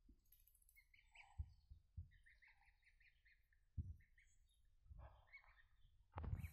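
Goslings peeping in short runs of quick, high chirps, with a few soft low knocks and a louder scuffle near the end.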